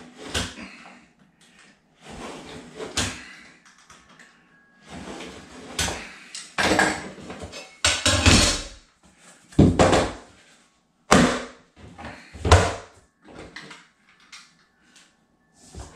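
Utility knife scoring a SmartCore waterproof flooring plank along a speed square, in hard-pressed scraping strokes, then a series of knocks and heavy thumps as the plank is shifted, turned over and pressed against the floor to snap it along the score.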